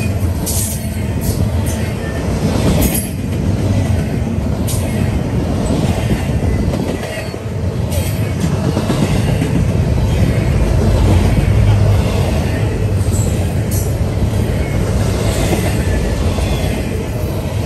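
Double-stack intermodal freight train rolling past close by: a steady loud rumble of the container well cars' wheels on the rails, with scattered sharp clicks and brief high squeaks from the wheels.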